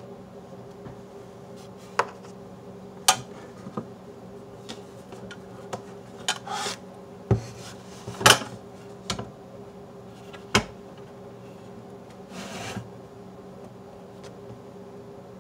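Metal projector housing handled on a wooden tabletop: scattered knocks and clicks, the loudest about 8 seconds in, as it is turned around and tipped over. There are short scraping rubs of the case sliding on the wood near the middle and again near the end.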